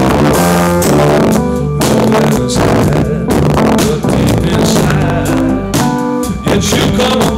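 Live rock band playing electric guitars over bass and drums, loud and harsh from right beside the main PA speaker.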